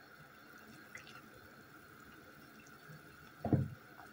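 Water bubbling in a pot of apple pieces and herbs as a wooden spatula stirs it, with a dull knock near the end.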